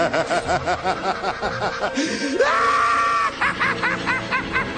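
High-pitched giggling in quick repeated bursts, broken about halfway by a rising, held squeal, then giggling again.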